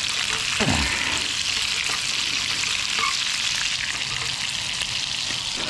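Pieces of brown trout sizzling steadily in oil in a frying pan over a camp stove.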